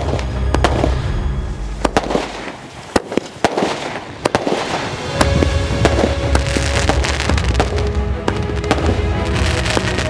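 Aerial fireworks firing a rapid run of shots that burst overhead with repeated sharp bangs and crackling, with background music laid over them.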